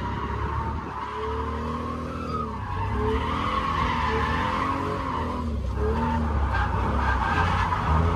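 Car engine revving up and down while the tyres skid across the pavement in a drift, with a continuous hiss of tyre noise under the changing engine note.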